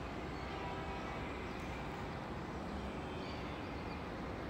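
Steady outdoor background rumble in an open stadium, with a few faint short high chirps about three seconds in.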